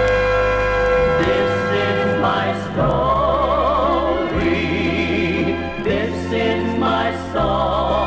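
Gospel vocal group singing in harmony over instrumental accompaniment. A held note gives way about three seconds in to voices singing with vibrato.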